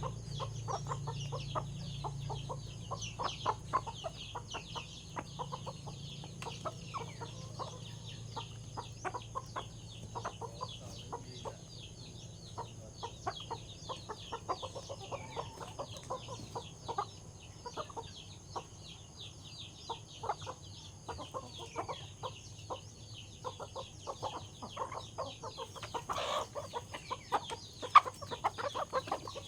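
A flock of chickens clucking and calling over feed, with many quick short ticks in between and a single sharp knock near the end.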